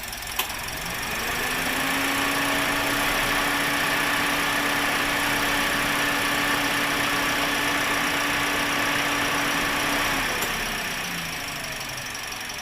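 Toyota Vios 1NR-FE four-cylinder engine idling roughly with a cylinder misfire. A short click comes about half a second in. A steady whine then rises, holds, and falls away about ten seconds in.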